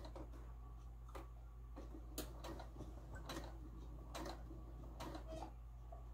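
Domestic sewing machine stitching slowly around the edge of a patch, its needle mechanism ticking faintly at an uneven pace as the fabric is guided, over a low steady hum.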